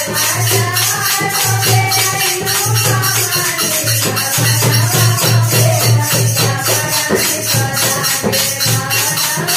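A woman leading a Hindu devotional bhajan to the Mother Goddess (Mata Rani) through a handheld microphone, with a women's kirtan group and fast, steady rattling hand percussion keeping the beat.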